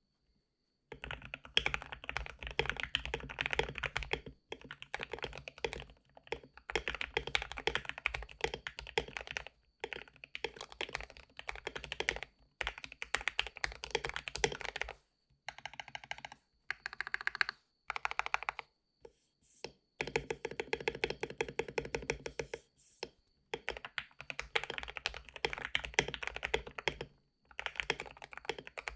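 Typing on a mechanical keyboard with lubed Gateron Yellow linear switches: fast runs of keystrokes broken by brief pauses.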